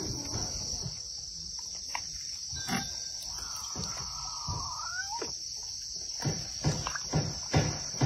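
Steady high chirring of crickets and other insects. Midway comes one drawn-out call that rises at its end, and in the last two seconds there are several short knocks.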